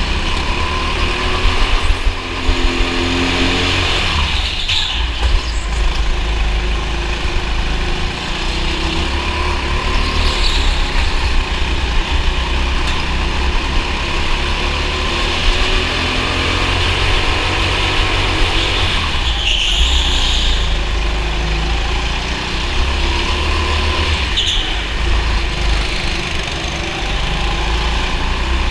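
Racing kart engine running hard, heard from on board, its pitch rising and falling as the kart accelerates and slows through the corners. A few brief high squeals cut through several times.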